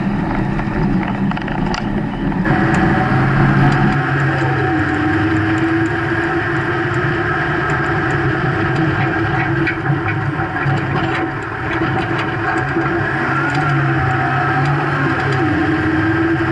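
Freightliner snow plow truck's diesel engine running steadily while the truck pushes snow. The sound changes abruptly about two seconds in, and the engine's pitch drops twice, about four seconds in and near the end.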